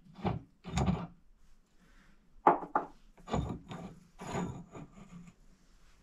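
Several short scraping and knocking sounds at irregular spacing, from metal parts being handled and worked at a workbench.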